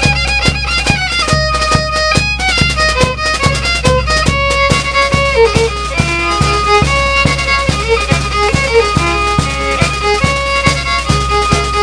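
Instrumental music: a melody over a quick, steady beat.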